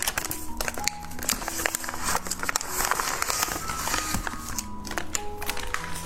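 Background music, a simple melody of held notes, under constant crinkling and crackling with many small sharp clicks, as of candy being unwrapped and eaten close to the microphone.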